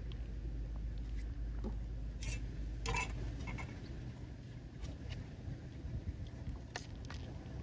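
Fingers working through the wet flesh of a large freshwater pearl mussel to pry out pearls: soft wet handling with scattered small clicks and taps against the shell, the loudest about three seconds in, over a steady low hum.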